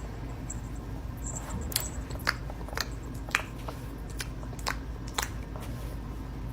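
A cat biting and chewing at flowers: a run of about six crisp, crunchy clicks of its teeth, roughly half a second apart.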